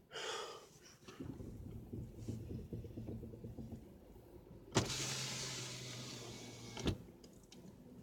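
A car's power window motor running for about two seconds, starting with a sharp click and stopping with a thunk, over the low hum of the car's cabin.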